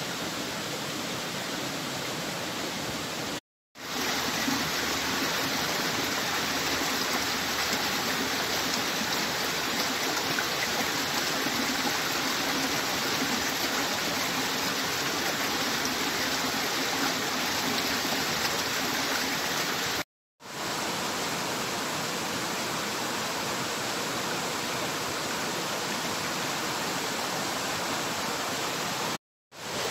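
Steady rush of running water, cut off to silence three times for a moment.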